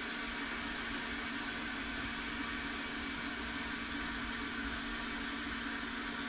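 Hot-air rework station's blower running steadily: an even rush of air over a low, constant fan hum.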